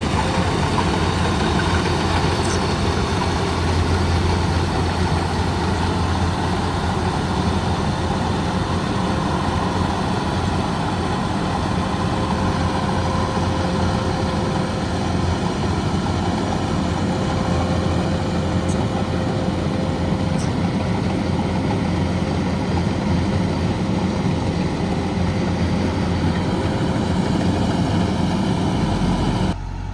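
Combine harvester's engine running steadily with a constant machine hum, dropping suddenly in level just before the end.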